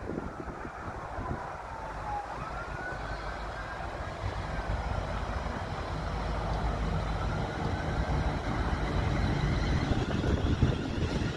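Electric multiple unit approaching and running past, its rumble of wheels on rail growing louder in the second half. Through it a high whine slides down, jumps back up about two seconds in, and wavers.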